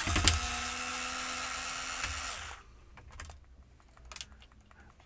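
Small power screwdriver running steadily for about two and a half seconds while undoing a laptop base screw, then stopping; a few faint clicks of small parts follow.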